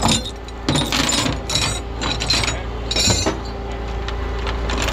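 Steel tow chains clinking and rattling as they are pulled out of a tow truck's side compartment: several separate metallic jangles over a steady low hum.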